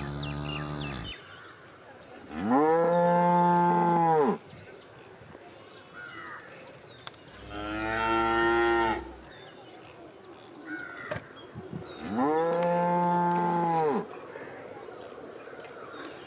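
Cow mooing: the end of one moo, then three long moos about five seconds apart, each falling away at its end. A faint steady high-pitched tone runs underneath.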